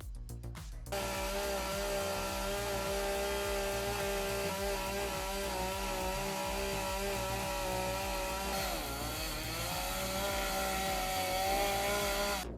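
Gas chainsaw running at high revs while cutting wood, starting abruptly about a second in; its pitch sags about nine seconds in as the chain bites under load, then climbs back.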